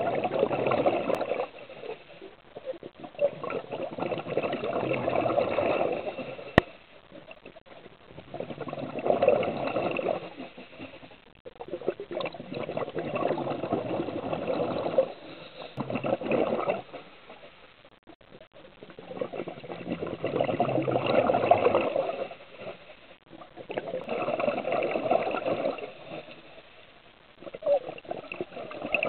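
Scuba diver's regulator breathing underwater: exhaled bubbles rush past in bursts of two to four seconds, about every four to five seconds, with quieter gaps between breaths. One sharp click about six and a half seconds in.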